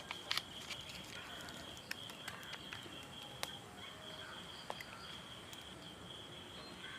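Quiet outdoor background with an insect's steady high-pitched trill running throughout. Scattered light clicks and a few faint bird calls sound over it.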